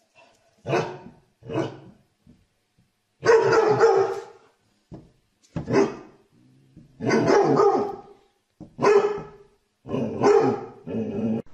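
Dog barking repeatedly, in loud separate barks with short gaps, several of them drawn out to about a second.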